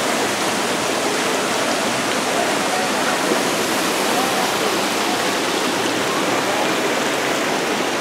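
Small waterfall spilling from a wooden flume into a rocky stream channel: a steady rushing and splashing of water.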